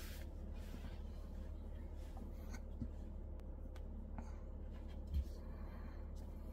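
Faint rubbing of a hand and pencil against drawing paper, with a few light ticks and one low thump about five seconds in, over a steady low hum.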